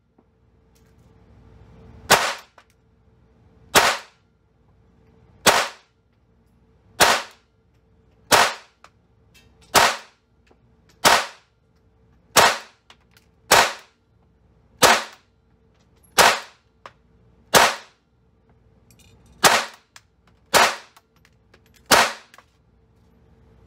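Fifteen .22 LR pistol shots from a GSG 1911-22, fired one at a time at a slow, even pace about one and a half seconds apart; the last shot empties the magazine and the slide locks back.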